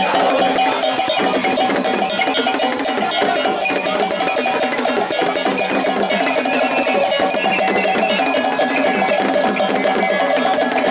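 Metal bells struck in a fast, steady rhythm, with the voices of a large crowd beneath them.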